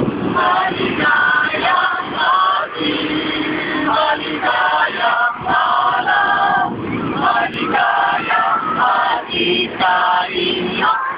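A small group of men and women singing together in unison and parts, with held notes that change every second or so.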